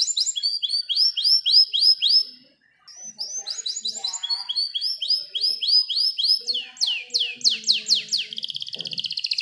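Domestic canary singing: a run of quick, repeated chirped notes, about five a second, breaks off briefly and resumes. It then goes into louder slower sweeping notes and ends in a very fast rolling trill, the long 'roll'.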